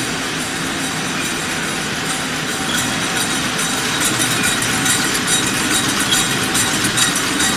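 Condensed milk canning line running: steady machine noise with tin cans clattering along the conveyor rails through the filler. The clatter grows denser and a little louder about three seconds in.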